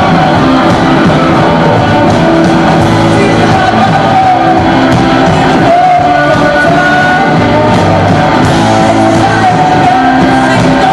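A live rock band playing loud and steady: bass guitar, drum kit and keyboard, with singing over the top.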